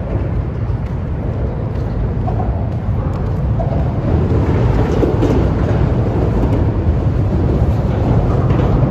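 A train rumbling across the bridge: a loud, steady low rumble that grows slightly louder about four seconds in.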